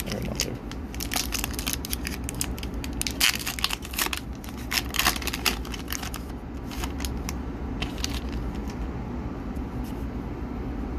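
Foil wrapper of an Upper Deck hockey card pack being torn open, with dense sharp crinkling and crackling for about the first six seconds. A few lighter crinkles follow as the cards are pulled out.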